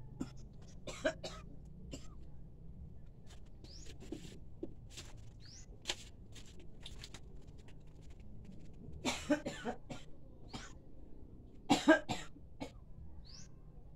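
A person coughing, a few times in the middle and hardest near the end, with scattered small clicks and a few short rising high chirps.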